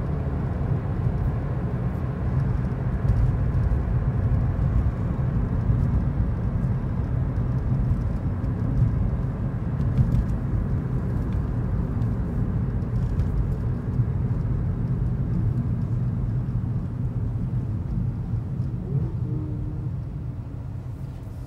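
Car cabin road noise while driving: a steady low rumble of tyres and engine, easing slightly near the end as the car slows in traffic.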